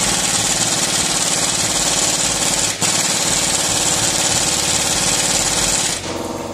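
Power tool working on the rusted rear subframe of a Jeep Patriot to put a small hole in the frame beside a seized subframe bolt's nut: a loud, fast, even run of rapid strokes with a strong hiss, dipping briefly near the middle and cutting off about six seconds in.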